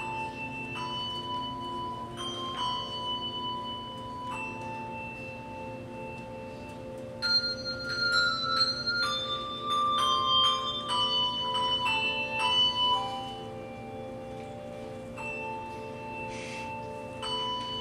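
Handbell choir playing a slow hymn tune, each bell note struck and left ringing over held lower tones. The playing swells louder about seven seconds in and softens again after about thirteen seconds.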